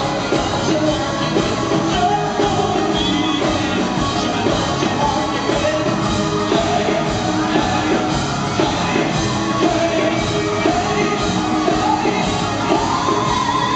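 Live rock band playing with a steady beat, with a male lead singer's vocals over it.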